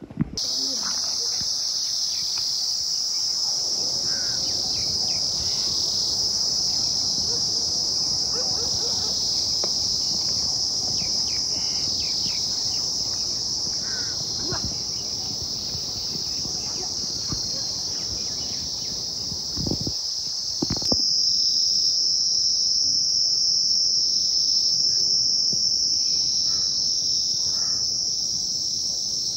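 Dense, steady chorus of chirping insects, an unbroken high-pitched buzz. Partway through, it changes abruptly to a slightly higher, purer pitch.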